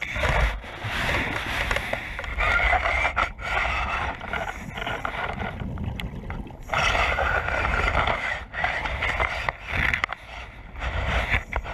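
Muffled underwater rushing and scraping heard through a GoPro's waterproof housing as a diver works a loop pole into a rock crevice, coming in bursts of one to three seconds with short breaks between them.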